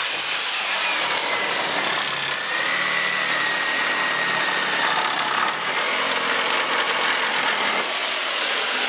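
Corded electric jigsaw sawing through a wooden beam, its motor running with a steady whine.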